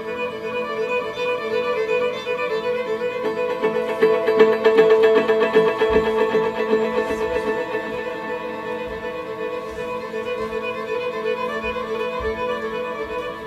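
Instrumental music led by a bowed string instrument such as a violin, holding long notes, with a passage of fast repeated notes in the middle that is the loudest part.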